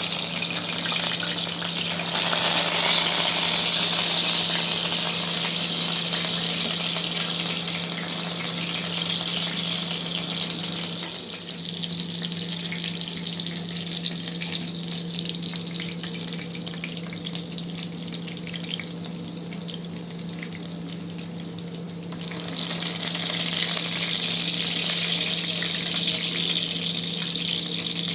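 Water running or pouring steadily, with a steady low hum beneath. It grows louder about two seconds in, eases off from about eleven seconds and picks up again from about twenty-two seconds.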